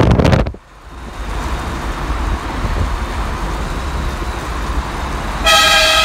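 Ford E-150 van driving with steady road noise, after a short loud rush of noise that cuts off about half a second in. About five and a half seconds in, the van's horn starts, a loud bright chord with many overtones, held on.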